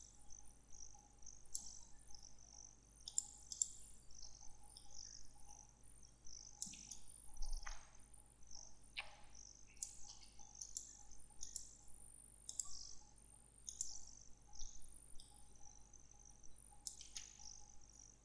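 Faint background chirping: short high chirps at irregular intervals over a low steady hum.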